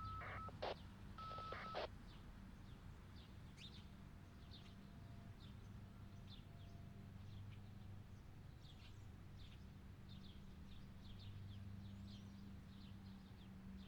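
Birds chirping faintly, a steady stream of short high chirps, over a low steady hum. Near the start come two short electronic beeps, each holding a single tone.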